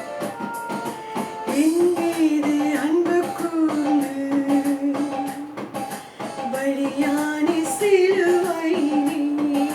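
Worship song: a voice singing a melody over guitar and a steady drum beat.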